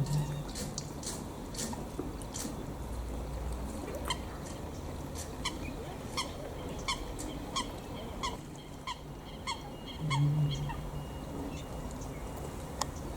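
Wild birds calling: a run of short, sharp calls repeated about once or twice a second, starting about four seconds in and fading out after about eleven seconds, over a steady low background hum.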